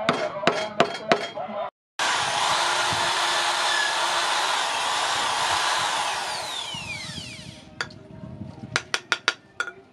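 A few quick hammer taps on a knife handle. Then an electric drill bores into the wooden handle, running steadily for about five seconds before it winds down with a falling whine. A few sharp knocks follow near the end.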